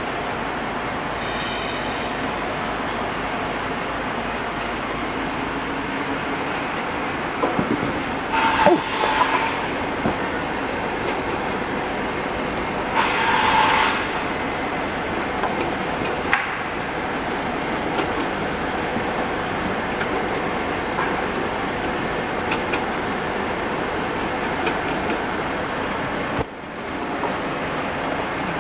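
Heat shrink tunnel packing machine running, its blower and conveyor making a steady whooshing hum. Two brief, louder whistling sounds come about 8 and 13 seconds in, with a few light clicks between.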